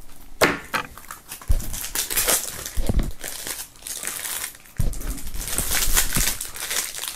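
Clear plastic shrink-wrap being peeled and pulled off a CD jewel case, crinkling and crackling irregularly with a few sharp snaps.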